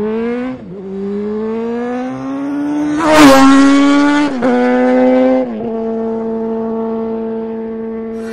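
Vehicle engine accelerating hard through the gears. Its pitch climbs, drops back sharply at each shift (about half a second in, and again around four and five and a half seconds in), then holds steady at high revs.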